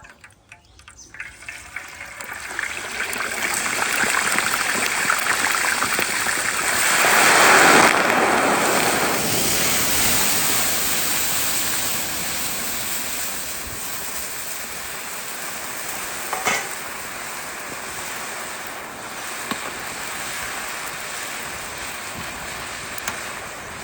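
Chicken pieces deep-frying in hot oil, sizzling. The sizzle swells over the first few seconds, is loudest about a third of the way in, then settles to a steady, slowly easing sizzle.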